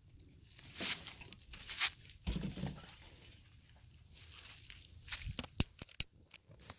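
Rustling and crunching of dry leaves and swing fabric being handled, with a dull bump a little over two seconds in. Near the end comes a quick run of sharp clicks from a long-nosed butane utility lighter being sparked and lit.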